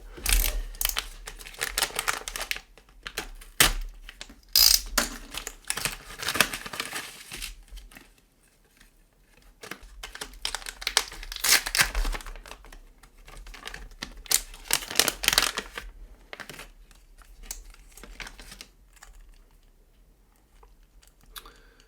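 Packaging bag being handled, crinkled and torn open while electronic parts are unpacked, in irregular crackly bursts with quieter pauses about a third of the way in and over the last few seconds.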